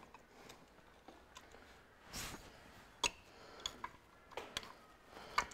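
A handful of faint, scattered metal clicks and light taps as small steel pry bars are set against the timing chain sprockets on the front of a Ferguson 23C diesel engine block, ready to lever the crankshaft gear off.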